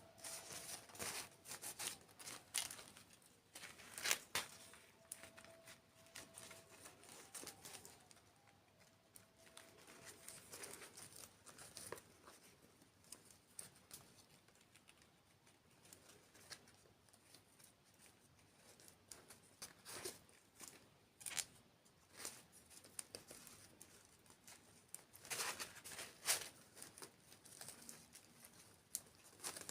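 Quiet, close-miked crinkling and crackling in irregular clusters of short clicks, denser in the first few seconds and again a few seconds before the end: the handling and eating of sweets in a dessert ASMR mukbang.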